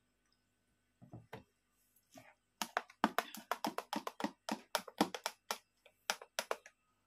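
Metal spoon stirring strawberry juice in a glass, clinking rapidly against the sides at about five strokes a second for some four seconds, after a couple of soft knocks about a second in.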